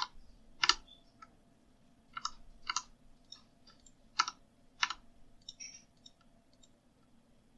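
Computer keyboard keystrokes: single sharp clicks spaced half a second to a second and a half apart, most of them in the first five seconds, with fainter ticks between.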